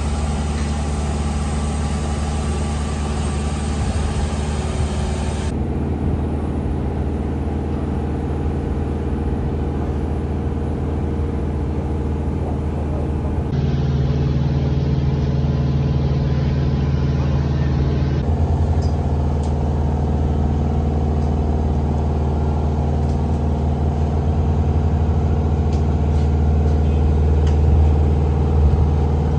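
Steady low engine hum of idling machinery, with the sound changing abruptly a few times; loudest near the end.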